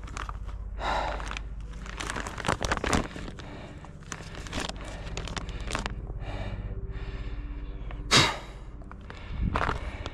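A runner's hard breathing, in uneven puffs, mixed with footfalls and small knocks. The loudest breath comes about 8 seconds in.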